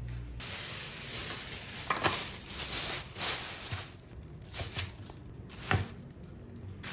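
Thin plastic bag crinkling and rustling in uneven surges as hands put raw chicken pieces into it.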